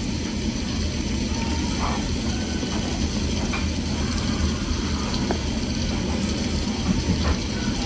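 Close-miked eating of mashed potatoes: steady wet mouth and chewing noise, with a few faint clicks of a metal spoon against a plastic tub.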